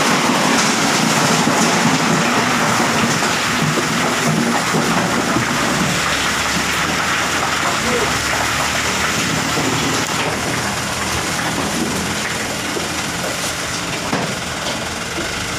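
Small dump truck running while its raised hydraulic tipper bed is lowered back down onto the chassis after dumping sand and gravel, a steady rushing noise that eases off slightly toward the end.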